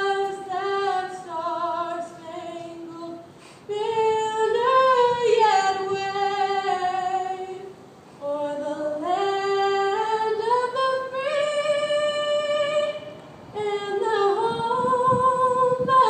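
A woman singing the national anthem solo and unaccompanied into a microphone, amplified through a PA speaker. She holds long notes with vibrato and pauses briefly for breath three times.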